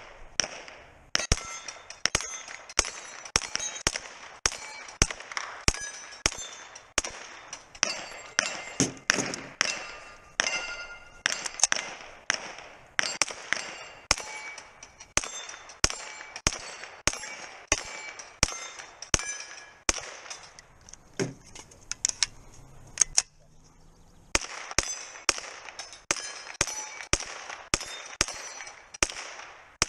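Ruger PC9 9mm pistol-caliber carbine firing a long string of single shots, about two a second, each followed by the ringing clang of steel knock-down targets being hit. The firing breaks off for about three seconds a little past two-thirds of the way through, then resumes.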